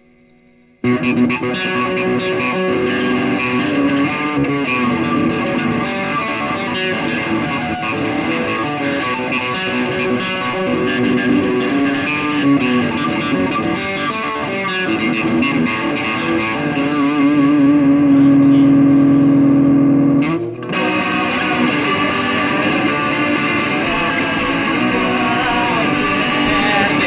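Distorted electric guitar playing a rock tune, coming in about a second in. Near the end it holds a long note, drops out for a moment, then comes back in.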